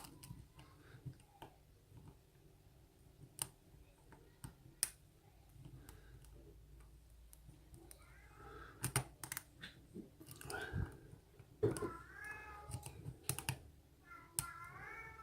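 Sharp, irregular metal clicks of a hook pick and tension wrench working the pins of an Abus 54/50 brass padlock. In the second half a cat meows a couple of times.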